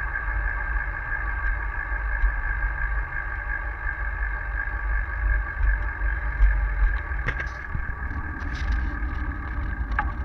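Wind buffeting and road rumble on the microphone of a camera mounted on a moving bicycle, with a steady whine over the top. There are sharp clicks a little after seven seconds in and again near the end.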